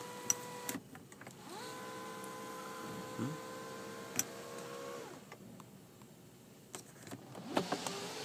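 Electric sunroof motor of a 2012 Buick LaCrosse whining steadily, then stopping under a second in with a couple of clicks. About a second and a half in it starts again, rises in pitch to a steady whine, runs for about three and a half seconds and winds down. A few more clicks come near the end.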